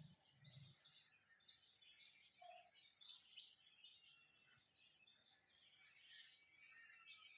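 Many small birds chirping faintly, their short calls overlapping throughout.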